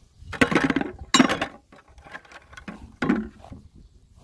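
Small garden hand tools, a metal trowel among them, dropped and set into a plastic bucket, knocking and scraping against its sides. There are two loud clatters in the first second and a half, then a few smaller knocks.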